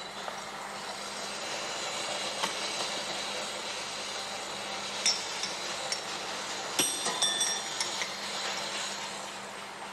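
Metal pieces clinking and ringing as they are worked at a workshop bench, with single taps about two and a half and five seconds in and a quick cluster of ringing clinks around seven seconds, over a steady low machine hum.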